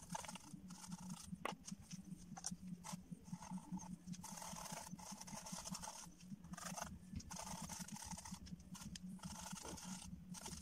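Faint scratchy brush strokes on canvas, coming in irregular bursts with short gaps, over a steady low hum.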